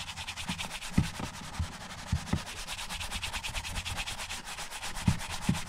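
Leather knife sheath being buffed with quick, even back-and-forth rubbing strokes, with a few soft knocks in between. This is the final buff that brings waxed and oiled leather up to a shine.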